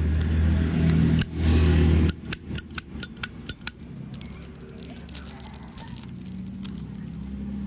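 Zippo lighter's hinged lid flicked open and snapped shut in quick succession, about six sharp metallic clicks with a bright ringing ping, about two seconds in, followed by a few faint clicks. A low rumble runs under the first two seconds.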